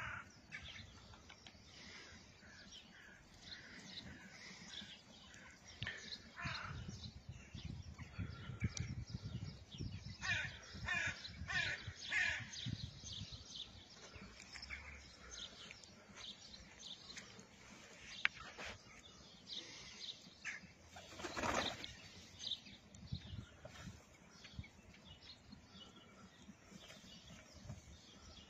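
Small birds chirping and singing on and off over a low rumble, with one louder call about three-quarters of the way through.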